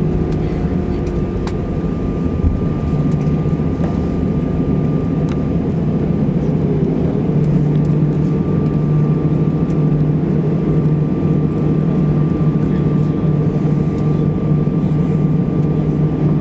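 Airbus A320 cabin noise while taxiing after landing: the engines at idle give a steady hum with a thin steady whine above it, heard inside the cabin over the wing.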